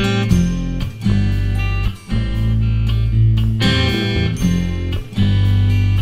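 Reference mix of a band track: strummed guitar chords over a steady bass line, with no vocals. The sound drops back briefly about one, two and five seconds in.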